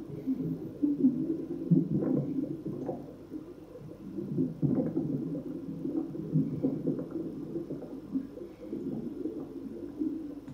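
Aquarium water bubbling and gurgling: an uneven low burble with small scattered pops and clicks.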